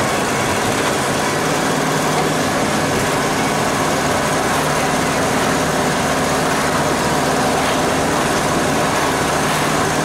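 Mercedes-Benz 208 D van's diesel engine running steadily on the move, with an even rush of road noise under a constant low hum.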